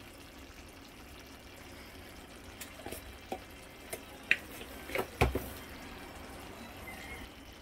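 Chicken tagine simmering faintly in a clay pot over a gas burner, a low steady hiss with a few scattered light pops and clicks, the loudest about five seconds in.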